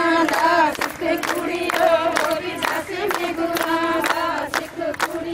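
A group of women singing a Punjabi folk song together, with steady rhythmic hand clapping, about two to three claps a second.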